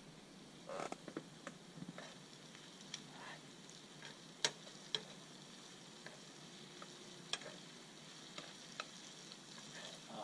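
Meat, onion and carrot frying for plov with a faint steady sizzle, while a utensil stirs them, scraping and clicking sharply against the pot now and then.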